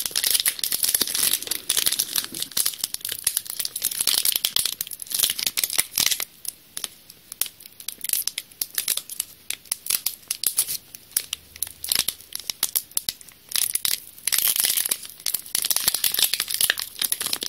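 Foil wrapper of a Yu-Gi-Oh! booster pack being crinkled and torn open by hand: an irregular crackling rustle, busiest in the first few seconds and again near the end, with sparser crinkles in between.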